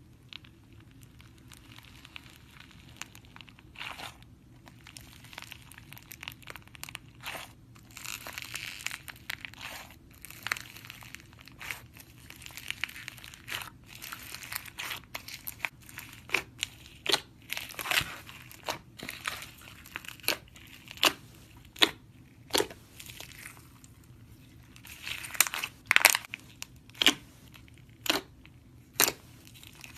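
Slime being squeezed and worked by hand, crackling steadily, with sharp pops that grow louder and more separate from about halfway through.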